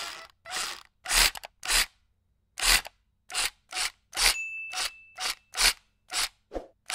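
Subscribe-button animation sound effect: a dozen or so short, sharp clicky bursts at uneven intervals, with a single bell-like ding held for about a second from about four seconds in.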